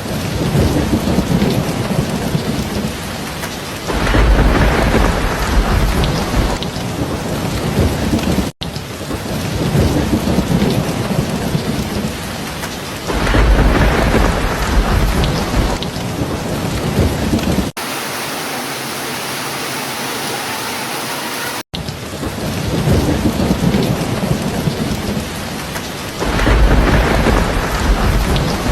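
Heavy rain falling steadily, with a low roll of thunder swelling up three times, about nine seconds apart. Between about 18 and 22 seconds in, the rain changes abruptly to a thinner, hissier patter without thunder, then cuts back.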